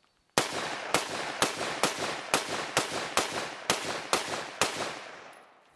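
Rapid semi-automatic gunfire: a steady string of about eleven shots, roughly two a second, each with an echoing tail, starting about a third of a second in.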